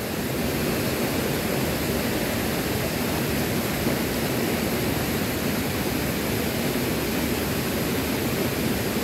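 Steady rush of flowing river water, an even hiss with no separate events.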